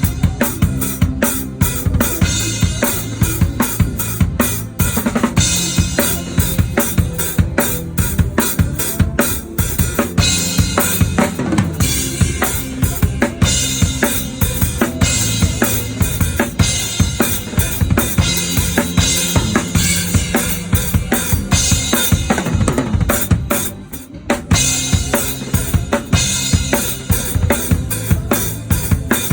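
A drum kit played up close in a worship band rehearsal: kick, snare and cymbals driving a steady groove, with the band's sustained low instruments underneath. It briefly drops back about 24 seconds in, then comes back in full.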